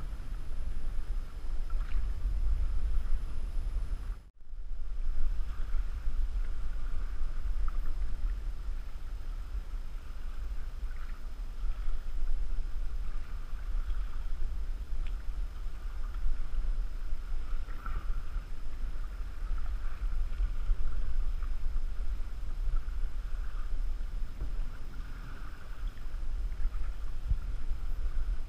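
Wind buffeting the microphone with a steady low rumble, over choppy lake water splashing and lapping against a canoe as it is paddled. The sound drops out briefly about four seconds in.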